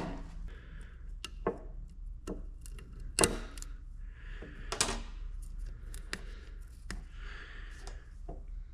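Small hand tools clicking, tapping and scraping on the metal of a 4L80E transmission pump while a snap ring is worked out of a valve bore, in irregular sharp clicks with scraping between them; the loudest click comes about three seconds in.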